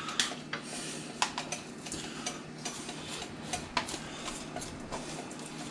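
Scattered light clicks and clinks of kitchen utensils against pots and dishes, irregular and a few at a time, over a faint steady low hum.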